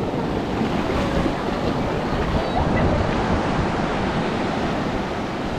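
Ocean surf washing in, foam rushing over the sand and around the boat, with wind on the microphone.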